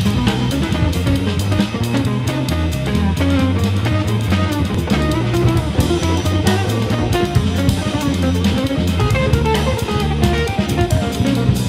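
Instrumental band music: electric guitar playing over a bass guitar line and a drum kit keeping a steady beat.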